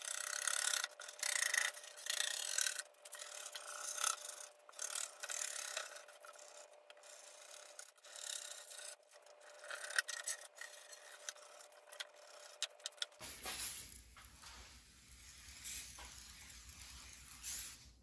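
Razor blade scraper scraping old gasket residue and grime off a glass pane, in a run of short, irregular rasping strokes. About two-thirds of the way through, the strokes stop and the sound turns quieter and steadier.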